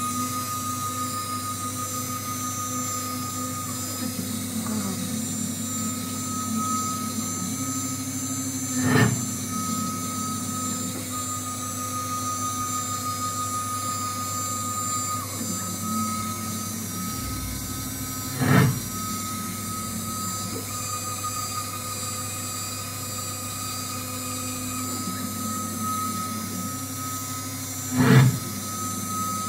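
Small DIY CNC machine spot-drilling an aluminium block: the spindle and drive motors run steadily with a high whine and a lower hum that shifts in pitch as the machine moves. Three times, about ten seconds apart, the spot drill plunges into the aluminium with a short, loud cut, marking the corner drill spots that locate the block.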